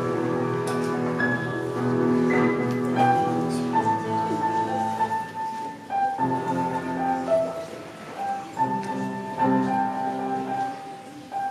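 Piano playing a slow piece: held chords changing about once a second under a single melody line.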